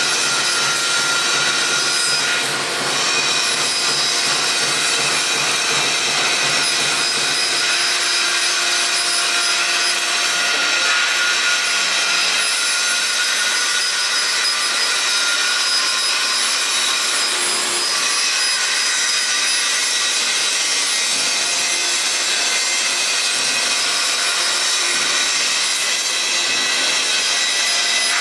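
CNC laser cutter cutting sheet steel: a steady high hissing from the cutting head, with a few steady high whining tones running through it.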